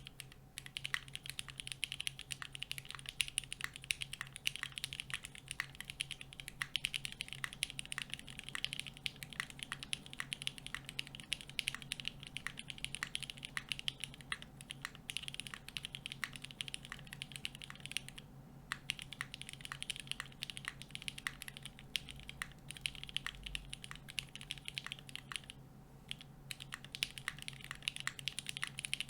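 Steady fast typing on a custom 60% Singa x TGR Unikorn keyboard with broken-in vintage Cherry MX Black linear switches in an aluminium plate and GMK Classic Blue keycaps: a dense run of keystroke clicks with two short pauses, one past the middle and one near the end. A faint steady hum sits underneath.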